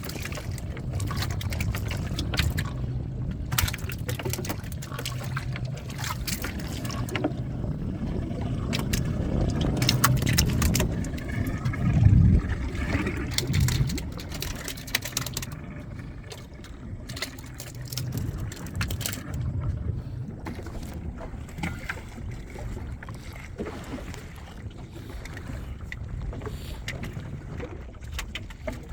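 Working sounds aboard a small fishing boat: a steady low rumble with scattered knocks and clatter, the loudest thump about twelve seconds in.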